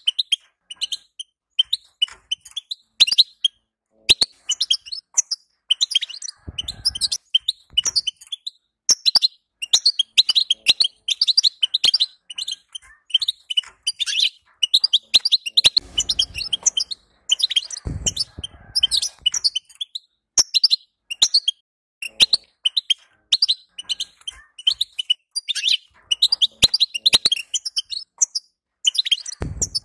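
European goldfinch twittering: a fast, almost unbroken run of high chirps and trills.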